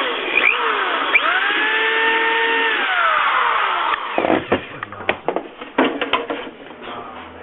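Power drill running in short trigger pulls, its motor pitch rising, holding and falling, while drilling a rivet hole through the helmet. It stops about four seconds in, followed by a run of clicks and knocks.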